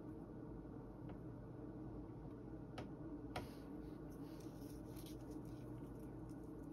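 Quiet room tone with a steady low hum, broken near the middle by two light clicks about half a second apart, followed by faint soft rustling.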